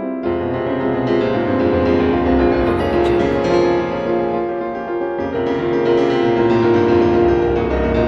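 Background music led by piano, with a bass part coming in just after the start.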